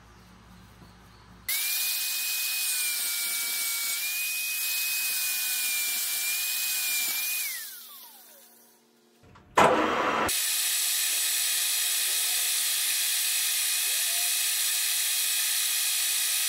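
A small high-speed power-tool motor starts suddenly and runs with a steady whine for about six seconds, then its pitch falls as it winds down. After a short loud burst, a metal lathe runs steadily, spinning a steel bar in its chuck.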